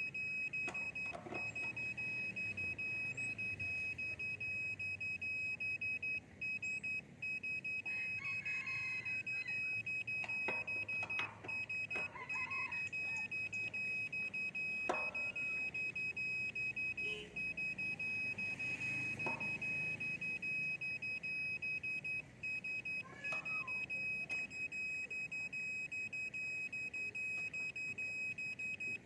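Satlink satellite finder meter beeping continuously at one high pitch, rapid and steady, its tone signalling that the dish has found the satellite. A few short knocks come in around the middle.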